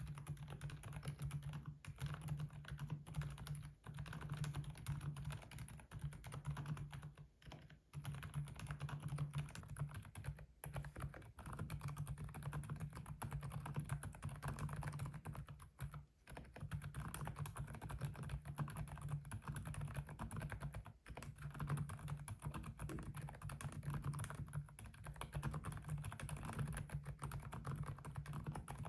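Continuous fast typing on a keyboard fitted with Kailh Deep Sea Pro Whale low-noise tactile switches, a dense stream of muted keystrokes. The typing breaks off briefly about seven and sixteen seconds in.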